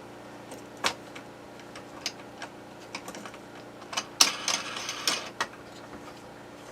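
Metal parts of a bench chainsaw chain sharpener clicking and clattering as it is assembled by hand: a single sharp click about a second in, then a quick run of clinks and rattling from about four to five and a half seconds in.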